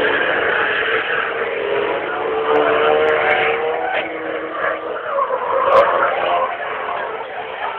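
Competition vehicle engines running and revving, their pitch rising and falling, with more than one engine heard at once.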